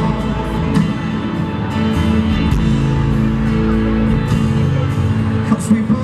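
Live country-rock band with drums and electric guitar playing an instrumental passage, with little or no singing, recorded from the audience in a large arena.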